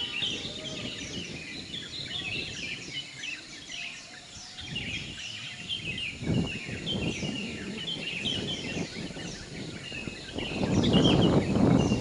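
Chorus of small birds chirping, many short high chirps overlapping throughout, over outdoor background noise. A low rushing noise swells about halfway through and again, louder, near the end.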